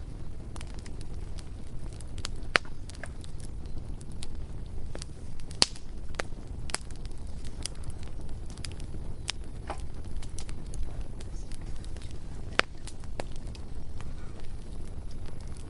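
Bonfire burning: a steady low rumble of the flames with irregular sharp crackles and pops of burning wood, a few of them much louder than the rest.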